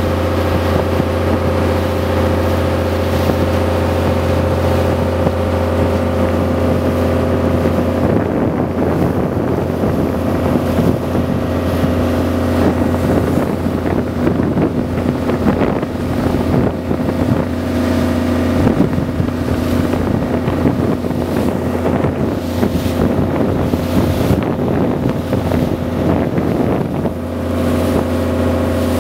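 Motorboat engine running steadily under way, with wind buffeting the microphone and water rushing along the hull. The wind and water noise turn rougher after about eight seconds and settle again near the end.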